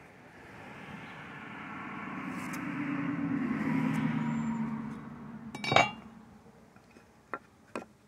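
A motor vehicle passes, its engine sound swelling over about four seconds and then fading. Then comes a sharp metallic clink, a metal square set down on the wooden frame, and two light taps near the end.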